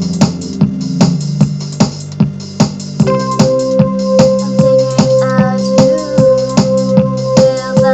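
Electronic music: a drum-machine beat under synthesizer or keyboard chords, with a held higher synth note and wavering melody coming in about three seconds in.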